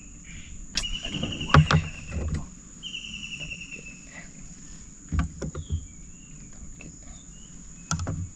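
Knocks and clunks of fishing gear handled in a small boat, the loudest about one and a half seconds in and about five seconds in, with another near the end. Behind them a steady high insect whine runs throughout, and a high, slightly falling trill sounds twice in the first four seconds.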